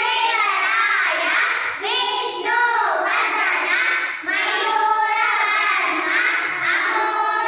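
A group of young girls singing together in unison, phrase after phrase, with short breaks about two and four seconds in.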